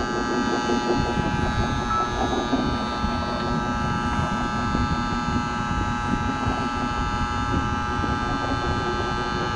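Electric boat-lift motor and gear drive running steadily under power, winding the lift cables, with a steady whining hum of several tones.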